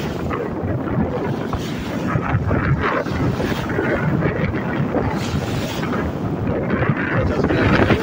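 Strong wind buffeting the microphone, with choppy sea waves splashing and washing underneath; the gusts swell a little near the end.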